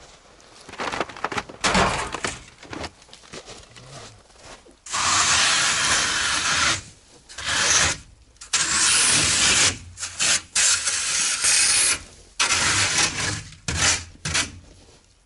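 Scraping and rubbing noise in long bursts of a second or more, as a man works by hand at the snow-covered front lid of a ZAZ-968.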